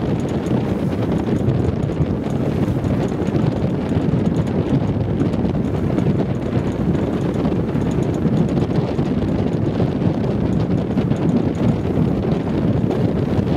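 Wind buffeting the microphone: a loud, steady rush that is strongest low down.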